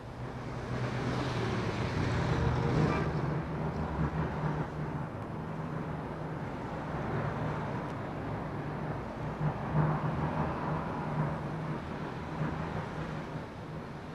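Steady outdoor traffic noise: a continuous low engine hum under a wash of street noise.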